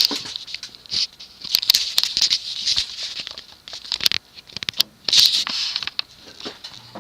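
Universal (TAT) spinner ceiling fan running on low, with an irregular clicking and scratchy rattle over a faint motor hum; the bearings are a bit loud and noisy.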